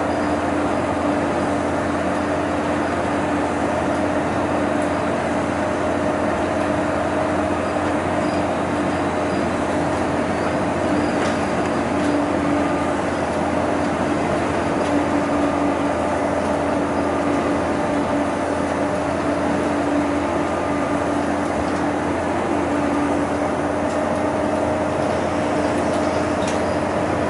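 City bus cruising at highway speed, heard from inside the cabin: a steady drone of engine and road noise with a constant hum.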